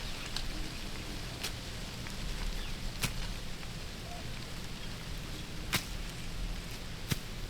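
Steady outdoor hiss with five sharp, irregular clicks or snaps spread through it, the sound of a hunter's quiet wait in the woods.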